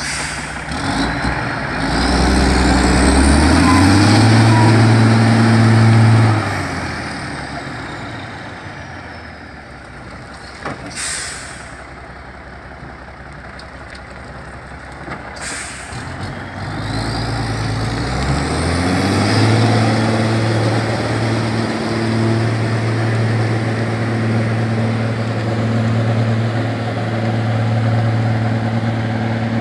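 Heavy logging truck engine revving up and pulling hard under a full load of logs, easing off after about six seconds. Two short air-brake hisses follow, then the engine revs up again and runs steadily under load.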